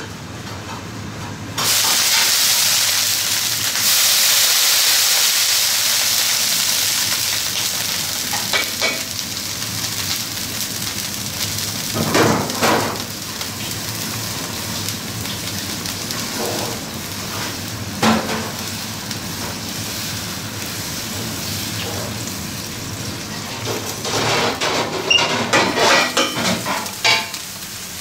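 Dosa batter sizzling on a hot flat griddle: a loud hiss starts suddenly about two seconds in and slowly fades. The ladle scrapes and knocks on the griddle now and then as the batter is spread.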